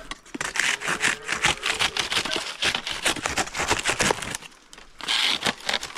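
Hand pruning saw cutting through the stalk of a coconut bunch in quick back-and-forth strokes for about four seconds, then a short pause and a brief final run of strokes.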